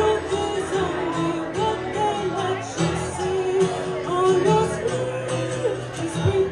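Live acoustic music: a woman singing a melody into a microphone over an acoustic guitar accompaniment.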